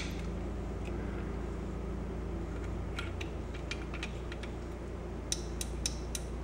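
Faint small clicks and taps of hands handling a metal car radio faceplate and its control knobs, in bunches about three seconds in and again near the end, over a steady low hum.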